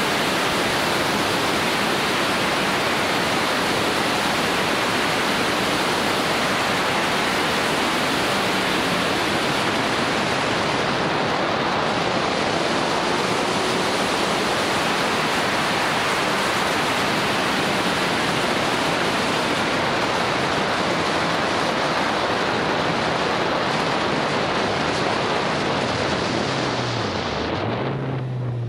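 Wind rushing over the microphone of a moving motorcycle, a steady noise that all but buries the engine. Near the end the rush fades and the motorcycle engine's note comes through, dipping and then holding steady.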